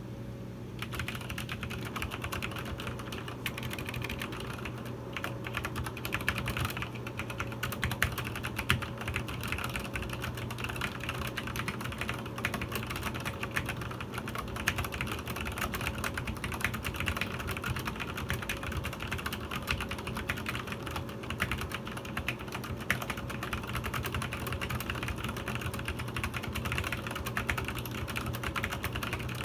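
Continuous fast typing on a Cherry G80-11900 mechanical keyboard with Cherry MX Black linear switches and POM keycaps: a dense run of keystroke clacks with no tactile bumps or click jackets, over a steady low hum.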